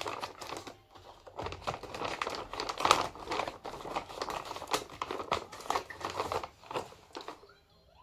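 Delivery parcel packaging being cut open and handled: irregular crinkling and crackling that dies away about seven seconds in.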